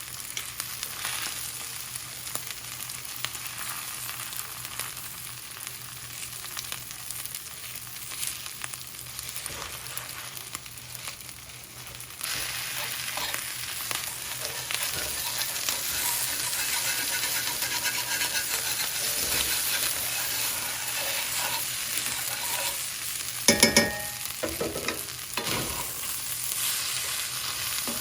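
Food frying and sizzling in a hot pan as it is stirred. The sizzle gets louder about twelve seconds in, and a brief loud clatter comes near the end.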